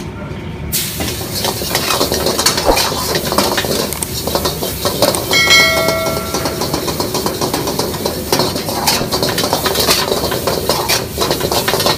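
Wok cooking on a high-heat wok burner: a loud hissing sizzle starts suddenly about a second in as food hits the hot oil, over the burner's low rushing, with a metal ladle repeatedly clanking and scraping against the carbon-steel wok.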